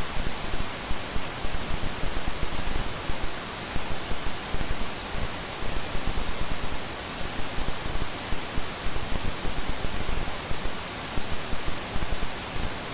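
Loud, even static hiss with irregular crackling pulses running through it.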